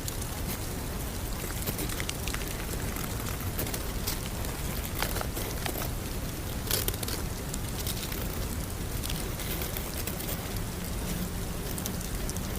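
Steady rain-like patter: an even hiss with scattered small ticks and drops throughout.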